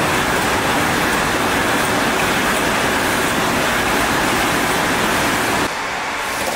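Pulp juice bottle filling line running: a loud, steady, even noise with no clear rhythm. About five and a half seconds in it drops to a quieter, thinner noise.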